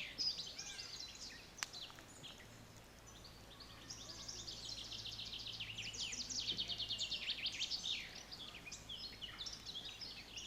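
Songbirds singing: fast trills of short, high, downward-sliding notes in long runs, with scattered chirps around them. A single sharp click comes about one and a half seconds in.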